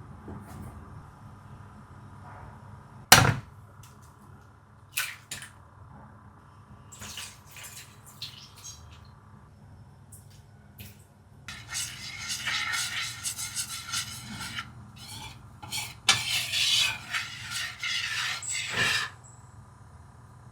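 Kitchen utensils and dishes being handled: a sharp knock, a few clicks, then two stretches of rapid scraping and rattling of utensil against bowl, each a few seconds long.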